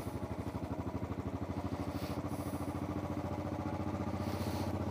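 Motorcycle engine running steadily at low road speed with an even, rapid beat, heard from the rider's seat.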